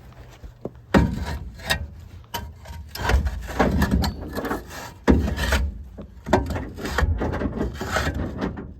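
Rough scraping and knocking in irregular bursts: a brick being shoved into place under the raised truck cab.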